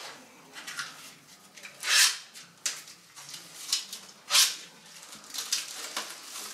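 Clear plastic packaging and bubble wrap crinkling and rustling in short, sharp bursts as the radiator's wall brackets are pulled out of their wrapping. The two loudest crinkles come about two seconds in and past four seconds.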